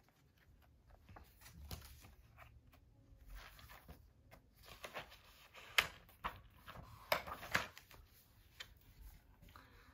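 Pages of a picture book rustling and flapping as they are leafed through by hand, with a few sharper paper snaps past the middle.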